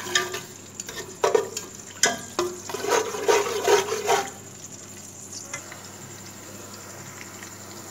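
Plastic spatula stirring and scraping chopped food as it fries in hot oil in a metal pot, with a sizzle underneath. The stirring strokes stop a little past halfway, leaving a steady, quieter sizzle.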